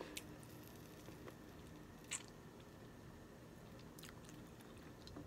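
Quiet mouth sounds of eating a seafood boil: chewing, with a few short sharp crunches, the loudest about two seconds in.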